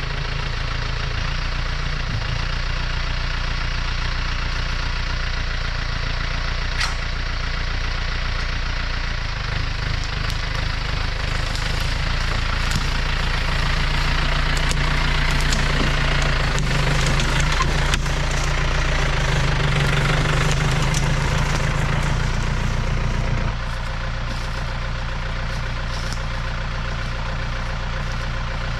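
John Deere 970 compact tractor's three-cylinder diesel engine running steadily. It grows louder through the middle stretch, as if working harder, then drops back a little past three-quarters of the way through.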